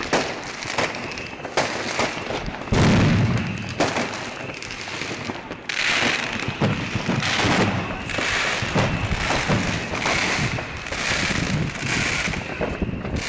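Fireworks going off in quick succession: many sharp bangs over a continuous crackle, with one louder blast about three seconds in and repeated hissing, crackling bursts from about six seconds on.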